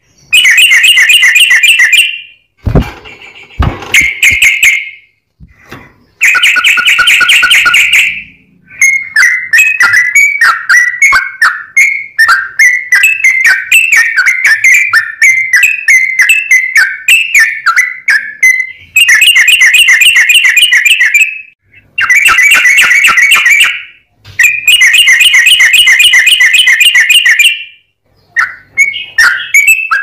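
Yellow-vented bulbul singing loud, quick whistled phrases. Most come in bursts of about two seconds with short pauses between them, and one longer run of notes lasts about ten seconds through the middle. Two dull knocks sound about three seconds in.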